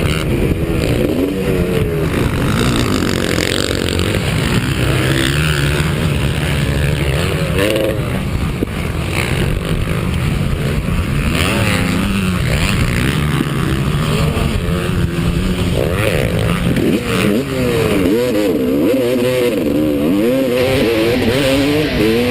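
Motocross motorcycle engines racing, the pitch repeatedly rising and falling as the riders rev, shift and back off over the track.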